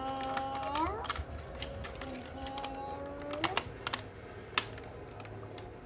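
Small, irregular clicks and taps from fingers handling a small plastic toy and play-dough pieces. Behind them, a held tone bends upward at its end, twice.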